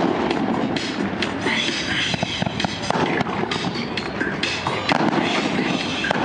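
Fireworks shells bursting, with many sharp bangs and crackles in quick succession.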